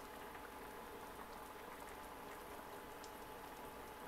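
Tomato broth with potatoes and chile strips simmering in a frying pan, its bubbles popping faintly in scattered small ticks, over a faint steady whine.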